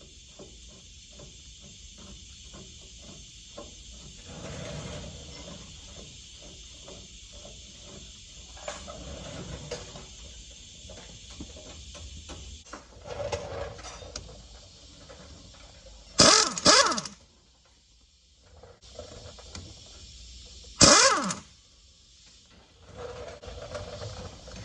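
Shop work on a truck's front end: small metal clicks and knocks from handling parts over a steady hiss, broken twice by short, loud bursts of a pneumatic air tool, the first lasting under a second.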